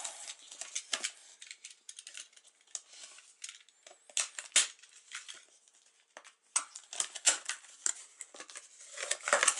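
Cardboard packaging handled by hands: a printed sleeve slid off a small box and the inner box's flaps opened, giving scattered scrapes, rustles and sharp clicks and taps. There is a quieter pause a little past halfway.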